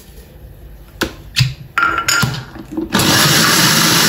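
A few light knocks, then about three seconds in a countertop blender starts and runs loud and steady at full speed, blending a watery green chutney of mint, coriander, chillies, garlic and ginger.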